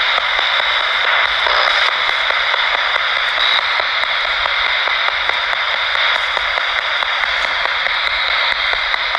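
Radio static from a ghost-hunting spirit box: a steady hiss with faint clicks running through it. It is being listened to for voices answering questions.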